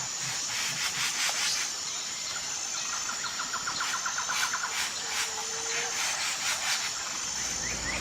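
Outdoor wildlife sounds: a steady high insect hum with repeated raspy scraping calls, and a short rapid trill of evenly spaced notes in the middle.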